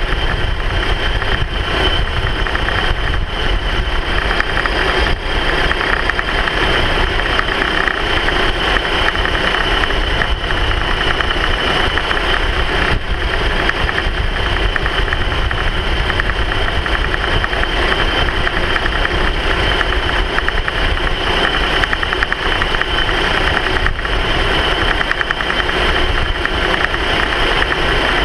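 Steady, unbroken running noise of a slow-moving vehicle: engine hum with rumble and road noise, held at an even level with no revving.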